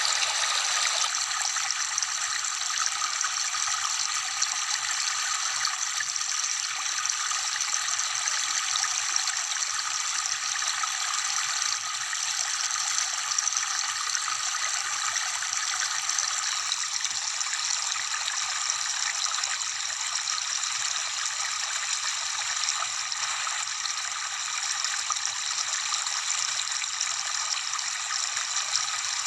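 Steady rush of falling water from a waterfall, even and unbroken, with almost no deep sound in it.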